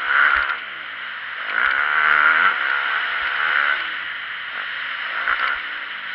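Motocross dirt bike engine revving up and down as the bike accelerates, heard from the rider's head-mounted camera, with a few short low thuds.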